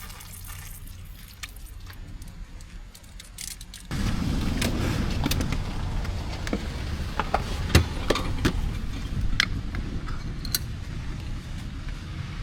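A quiet stretch with a few light clicks, then about four seconds in a vehicle's low rumble starts suddenly and runs on, with many scattered clicks and knocks over it.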